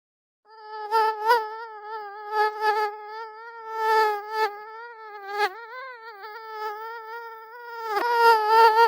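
Mosquito in flight, its wings making a high, thin whine that starts about half a second in. The whine wavers a little in pitch and swells louder several times, as when the insect passes close to the ear.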